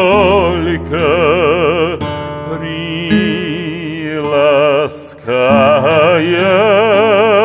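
Male voice singing a Russian romance with strong vibrato over instrumental accompaniment, drawing out long held notes, with a brief break for breath about five seconds in.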